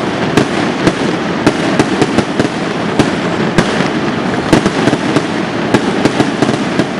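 Road firecrackers and aerial fireworks going off: a dense, continuous crackle, with louder sharp bangs scattered irregularly through it.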